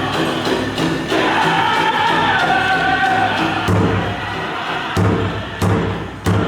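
Powwow drum group singing, high voices sliding down in pitch, over a big powwow drum; from about four seconds in the drumbeats come loud and evenly spaced, a little under two a second.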